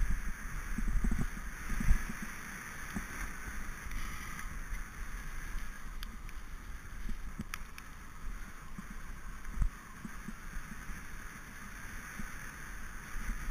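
Mountain bike descending a gravel track at speed: steady wind rush over the camera microphone with tyre rumble on the loose gravel and scattered knocks and thumps from bumps, the sharpest about two seconds in and another near ten seconds.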